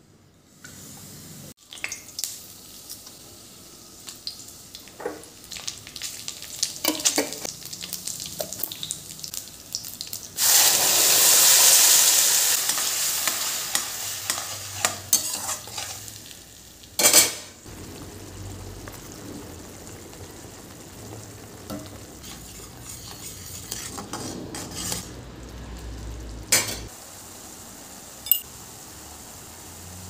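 Cooking in a stainless-steel kadai: a slotted steel spatula scrapes and clinks against the pan while oil and spices sizzle. About ten seconds in, a loud sizzle bursts up as wet masala goes into the hot oil, then dies away over a few seconds. Sharp knocks of the spatula on the pan rim come at intervals.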